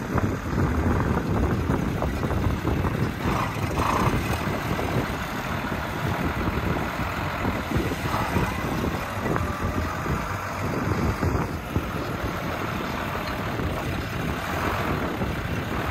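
New Holland tractor's diesel engine running steadily as its front loader's grapple bucket drives into a compost pile and scoops a load.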